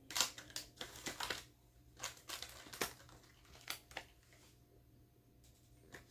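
Australian polymer banknotes and plastic cash envelopes rustling and crinkling as cash is counted and sorted. There are several short rustles with quiet gaps between them.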